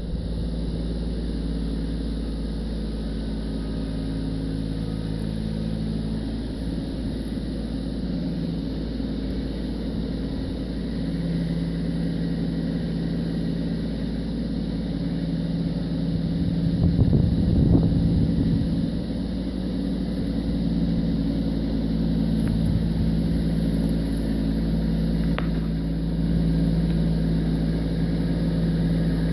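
Kubota B2601 compact tractor's three-cylinder diesel engine running steadily under work, its pitch shifting now and then, with a louder stretch a little past the middle.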